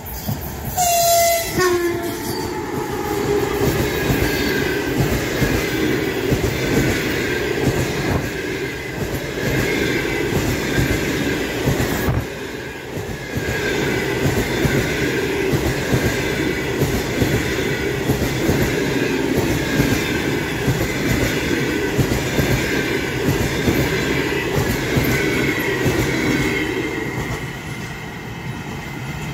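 EP1 electric locomotive sounds a short horn signal about a second in as it passes, then its passenger coaches roll by with a steady rumble and clatter of wheels on the rails, easing off near the end as the train moves away.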